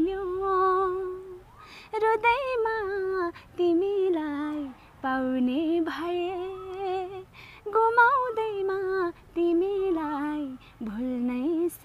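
A woman singing unaccompanied in short phrases, holding each note with vibrato and pausing briefly between them.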